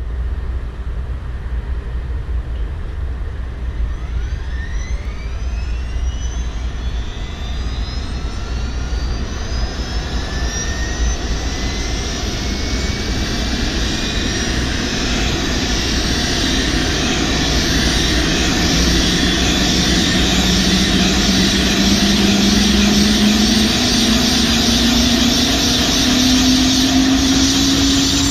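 Airbus AS350 A-Star helicopter's turboshaft engine spooling up on the ground with the main rotor turning. A whine rises in pitch from about four seconds in, over a steady low rumble, and the whole sound grows gradually louder.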